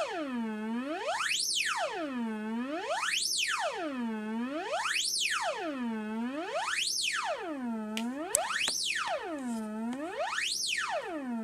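A swept test tone played through a 12AX7 tube overdrive and TDA8932 class-D amp, rich in distortion overtones. It glides smoothly up to a high pitch and back down again about every two seconds, like a siren. There are a couple of short clicks about eight seconds in.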